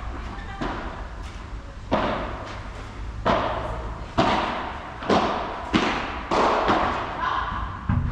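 Padel rally: the ball being hit back and forth, about eight sharp hits in eight seconds, each with a short echo in the large tented hall.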